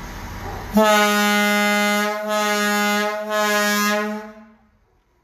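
Firehouse rooftop air horn, well over 60 years old, sounding one long, steady blast that starts about a second in, lasts about three and a half seconds, wavers slightly twice, then dies away.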